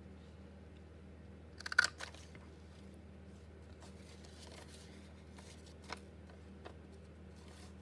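Handheld paper craft punch snapping through paper: one short cluster of sharp clicks just under two seconds in, followed by a few faint single clicks of paper being handled, over a low steady hum.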